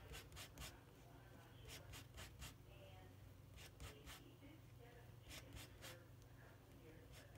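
Palette knife scraping and tapping oil paint on a palette, mixing colour in several short runs of quick strokes; faint.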